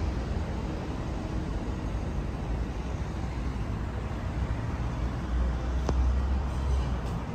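Steady road traffic noise, with a louder low rumble from about five to seven seconds in, as of a vehicle passing.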